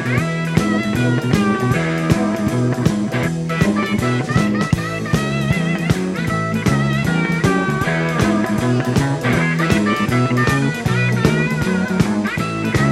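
Blues-rock instrumental: a guitar playing lead lines with bent, wavering notes over bass and a drum kit.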